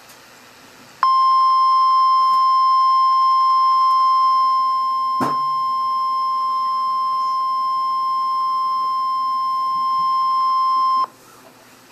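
NOAA Weather Radio warning alarm tone (1050 Hz): a single steady high beep held for about ten seconds, starting about a second in and cutting off sharply. It is the signal that a warning message follows, here a tornado warning. There is one short click about halfway through.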